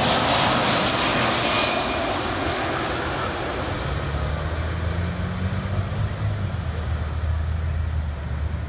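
Air Force One, a Boeing 747 (VC-25A), passing low on final approach with its four jet engines running. The jet noise is loudest at first and fades steadily as the aircraft moves away down the runway to land. A low steady hum sets in about four seconds in.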